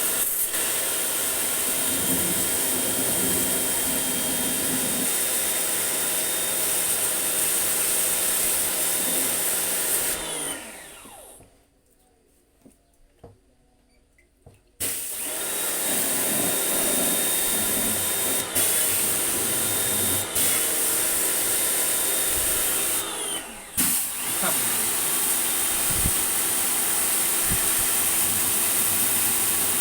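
An electric motor-driven machine running loudly and steadily with a whine and a hiss. It winds down and stops about eleven seconds in, then starts up again about four seconds later, with a few brief dips.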